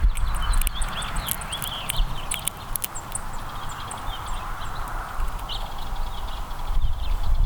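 Small songbirds chirping in short, high cheeps, with frequent sharp taps and clicks throughout, over a low rumble.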